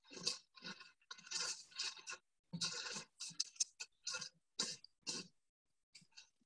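Rotary chakk oil mill grinding copra: scraping, crunching noise that cuts in and out in short, irregular bursts, about three or four a second, with brief silences between.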